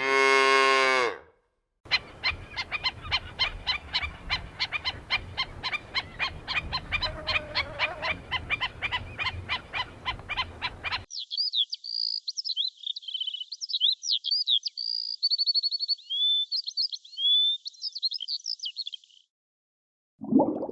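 A cow's moo ends about a second in. Then comes a rapid, steady train of croak-like animal calls, several a second, for about nine seconds, followed by high, quick bird chirps and whistles for about eight seconds.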